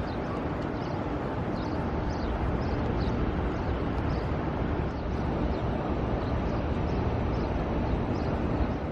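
Steady outdoor city ambience: a low, even rumble of traffic and crowd noise, with faint short high chirps recurring throughout.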